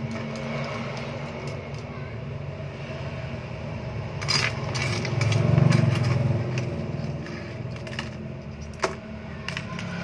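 Small pebbles clicking and rattling as they are scooped with a metal spoon and dropped into a small plastic plant pot, with a sharp click a little before the end. A steady low hum runs underneath and swells to its loudest a little past the middle.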